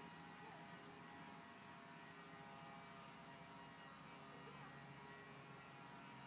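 Near silence: faint outdoor background, with a faint high tick repeating about twice a second and a brief click about a second in.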